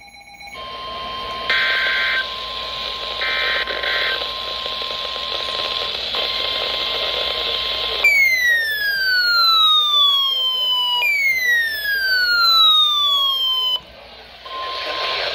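Weather-radio static with a steady tone, broken by two short warbling data bursts of an EAS (SAME) header. About eight seconds in come two long falling alert tones, each sliding downward over about three seconds, before the static returns.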